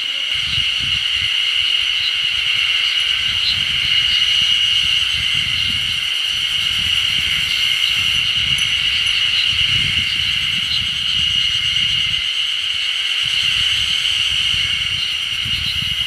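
Steady high-pitched insect chorus, a continuous shrill drone with no breaks, over a low, gusting rumble of wind on the microphone.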